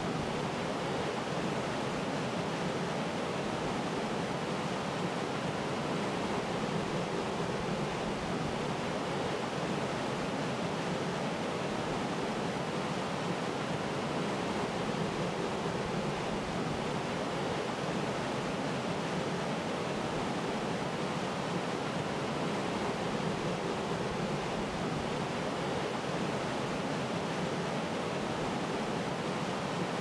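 Waterfall: water falling and splashing in a steady, even rush that does not change.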